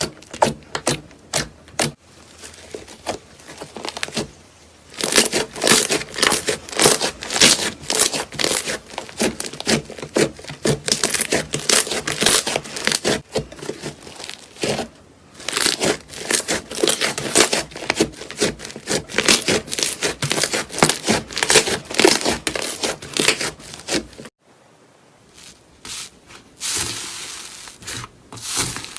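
Slime being squeezed and stretched by hand, giving dense runs of sharp crackles and pops. The crackles start sparse, then come thick and fast. Near the end there is a short break followed by a softer crinkly hiss.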